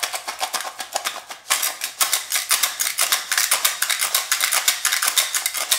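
Small metal tin of mints shaken as a shaker, the mints rattling against the tin in a fast, dense rattle that grows louder about a second and a half in.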